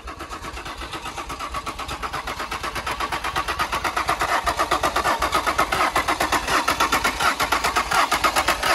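Starter motor cranking a Ford Escape's engine over on a NOCO jump pack. It is a fast, even chugging that grows steadily louder, and the engine does not catch.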